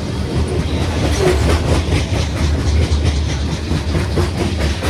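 A loaded coal train's cars rolling slowly past, a low rumble with a regular clickety-clack of wheels over the rail joints.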